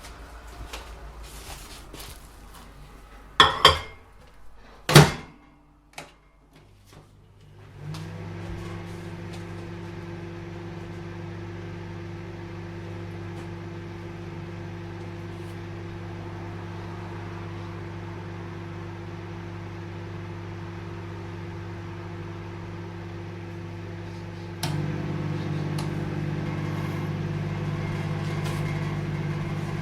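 Microwave oven handled with clicks and two sharp, loud clunks, then switching on and running with a steady hum; about 25 seconds in the hum steps up louder.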